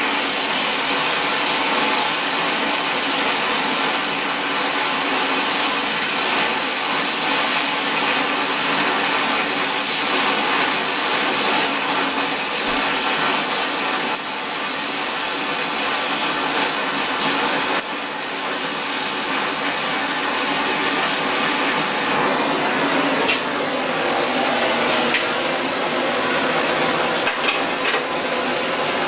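Oxy-fuel gas torch flame hissing steadily while brazing filler rod is melted onto a heated steel part, with a few light metallic clicks near the end.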